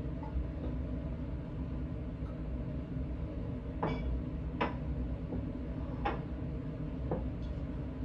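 Glass bottles and a glass graduated cylinder being set down and moved on a lab benchtop: several light clicks and knocks in the second half, over a steady low hum.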